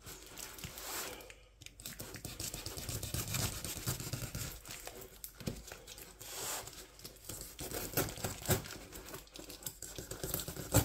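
Cardboard parcel being cut open with a utility knife: the blade rasping through packing tape and cardboard in short, irregular strokes, with tape and box flaps tearing and crinkling.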